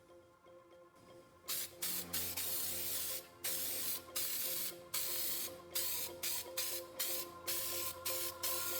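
Aerosol can of spray gasket adhesive hissing in a quick series of short spurts, starting about a second and a half in, over background music.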